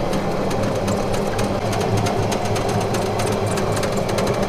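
Electric golf cart driving at speed: a steady hum from the drive motor, with a quick patter of clicks and rattles from the cart and its tyres on the road.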